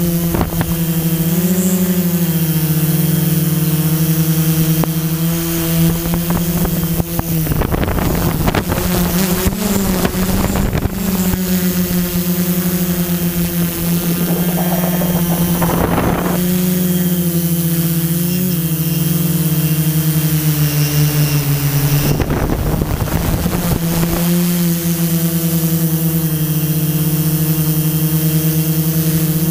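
Quadcopter drone's electric motors and propellers buzzing steadily, heard through its own onboard camera, the pitch dipping and rising slightly as it manoeuvres. Wind buffets the microphone twice, about a quarter of the way in and again about three-quarters through.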